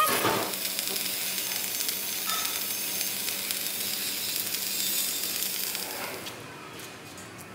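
A steady sizzling crackle that starts sharply, then thins and drops in level about six seconds in.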